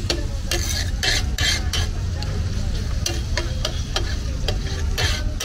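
Liver and tomatoes sizzling on a large flat metal tawa while a metal spatula scrapes and knocks across the griddle in short, repeated strokes, over a steady low rumble.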